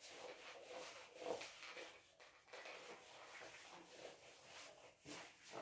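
Faint rubbing of a duster wiped across a whiteboard in repeated strokes, mostly in the first two seconds.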